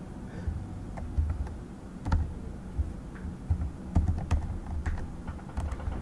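Typing on a computer keyboard: irregular key clicks, each with a dull low thump.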